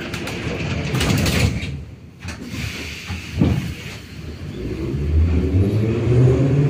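Metro car's sliding doors closing, with a sharp knock about three and a half seconds in. From about four and a half seconds the train starts off, and its motor tones rise steadily in pitch as it accelerates.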